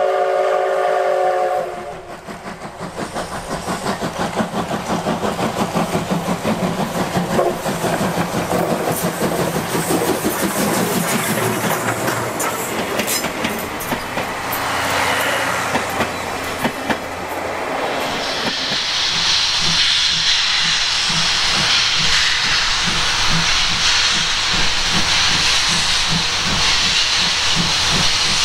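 Steam locomotive C57 180 sounds a short steam whistle, then works past hard with rapid exhaust chuffs while its coaches roll by with wheel and rail clatter. About two-thirds of the way in, a loud steady steam hiss takes over, with slower, even exhaust beats under it.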